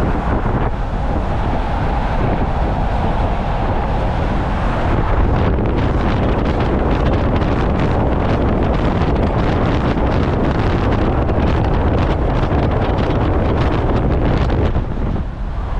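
Old Ford pickup truck driving at highway speed towing a loaded trailer: steady engine and road rumble. From about five seconds in, wind gusts across the microphone over the road noise.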